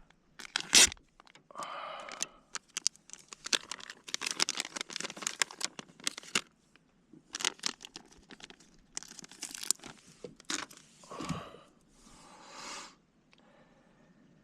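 Crinkling, rustling and tearing of a plastic bait package, with irregular sharp clicks, as a chartreuse soft-plastic lure is taken out and put on the line.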